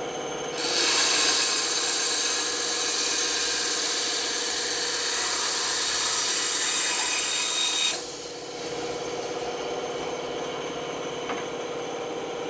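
Band saw running with a steady tone while its blade cuts through wood, a loud hiss that starts about half a second in and stops sharply about eight seconds in, leaving the saw running without load.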